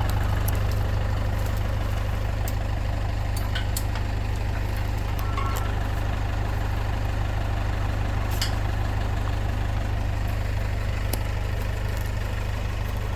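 Tractor engine idling steadily, with a few short sharp clicks over it.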